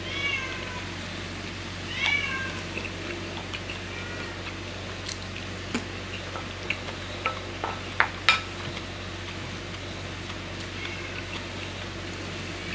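A house cat meowing, several short arched calls at the start and about two seconds in, fainter ones later. Between them, sharp clinks of a metal spoon against a ceramic bowl, loudest about eight seconds in.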